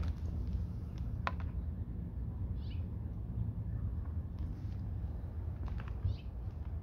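Outdoor background: a steady low rumble, a single sharp click about a second in, and a faint short bird-like chirping twice, near three seconds and again near six seconds.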